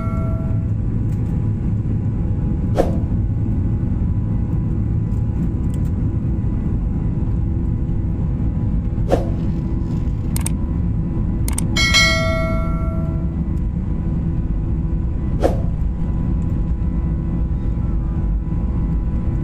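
Steady low rumble of an airliner's engines. A bright single chime rings for about a second around twelve seconds in, and a few sharp clicks come now and then.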